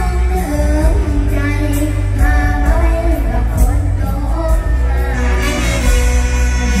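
A young girl singing a Thai mor lam song into a microphone, over an amplified band with a strong bass and a steady cymbal beat.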